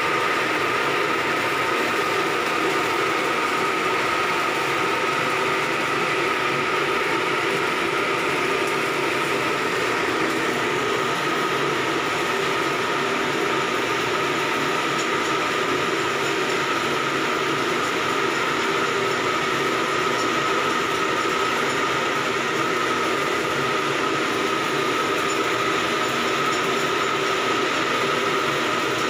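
Steady, loud machinery running noise with a constant high hum, unbroken throughout.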